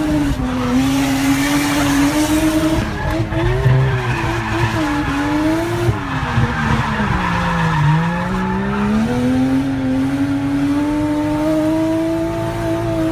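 Drift car's engine revving hard, heard from inside the cabin, its pitch rising and falling with the throttle as the car slides, with tyres squealing. The revs drop low about eight seconds in, then climb again and hold high.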